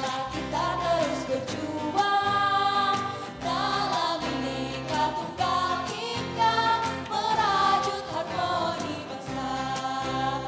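Music: a party march song sung by voices over instrumental backing with a steady beat.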